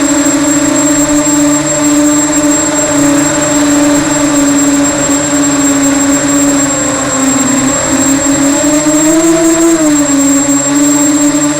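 Electric motors and propellers of a small FPV racing multirotor whining steadily as it flies. The pitch dips and rises with the throttle, falling about seven seconds in and climbing again about nine seconds in.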